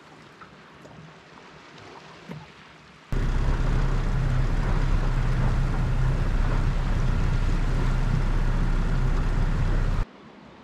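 A small boat's 25 hp outboard motor running steadily under way, with wind and water rushing past, starting suddenly about three seconds in and cutting off abruptly near the end. Before it, only faint water lapping and a few small knocks from the drifting boat.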